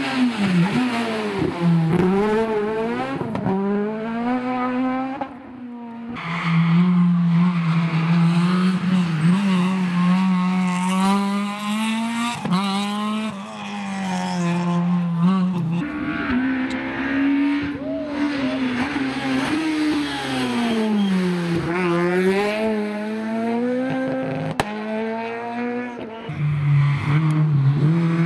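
Rally cars driven hard on a tarmac stage, one after another: engines revving up and dropping back through gear changes and braking for corners, the sound switching abruptly to a new car about three times.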